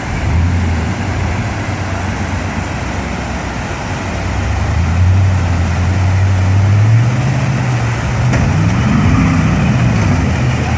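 Off-road vehicle engine working under load, its revs climbing about two-thirds of the way through, then rising and falling twice near the end.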